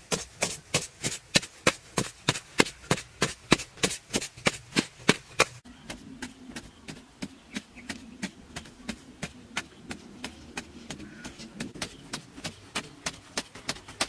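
Hoe blade striking and chopping into dry, clumpy soil in quick, even strokes, about three a second. The strokes are louder for the first half, then softer after about five and a half seconds.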